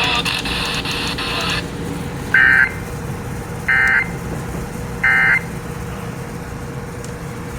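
Three short bursts of Emergency Alert System SAME digital data tones, the end-of-message code that closes a broadcast warning. Each burst lasts about a third of a second, about a second and a half apart, over weather-radio hiss and a steady hum.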